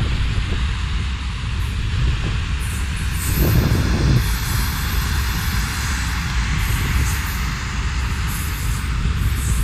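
Steady rumble of a freight train rolling along the line, with a brief low swell about three and a half seconds in.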